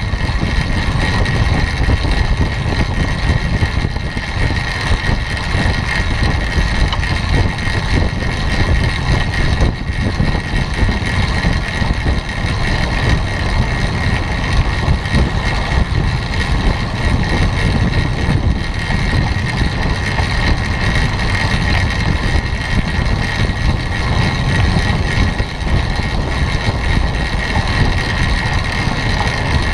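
Steady wind rush over a bike-mounted camera's microphone, with the low rumble of a track bike rolling at about 27 mph on wooden velodrome boards. A steady high hum runs under the noise.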